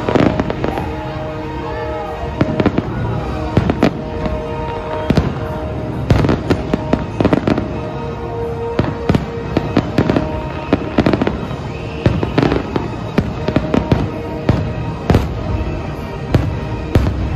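Aerial fireworks display: a dense, irregular series of sharp bangs and crackling bursts, several a second at times, over music with sustained notes.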